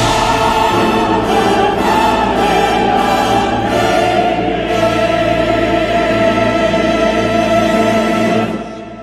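Background music: orchestra and choir in a dramatic classical style, with a long held chord that fades out near the end.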